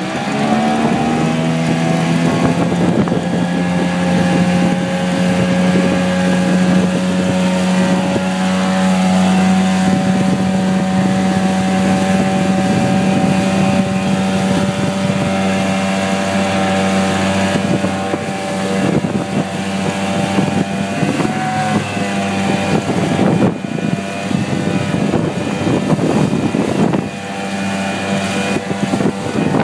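Motorboat engine opening up to pull a wakeboarder out of the water, then running steadily at towing speed, with wind noise on the microphone.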